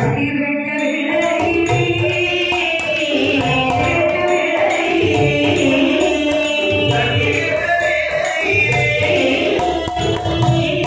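Villu paattu (Tamil bow-song) music: a voice singing a winding melodic line over drum and percussion accompaniment in a steady rhythm.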